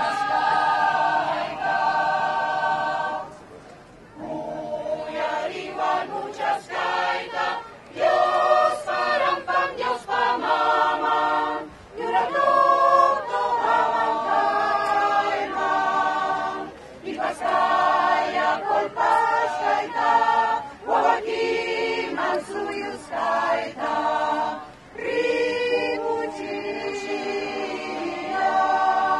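Mixed choir of men and women singing unaccompanied, in phrases of held notes with short breaks between them.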